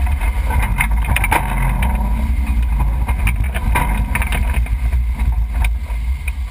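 1991 Range Rover Classic driving slowly over a rocky dirt trail: a steady low rumble with wind buffeting the microphone, broken by scattered knocks and rattles from the uneven ground.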